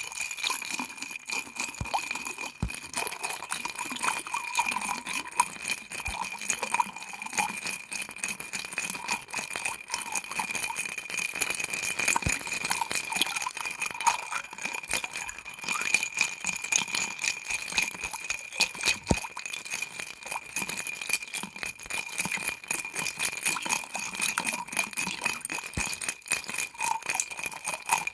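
Ice cubes rolling and clinking against the inside of a glass of ice water, a dense, continuous rattle of small clinks.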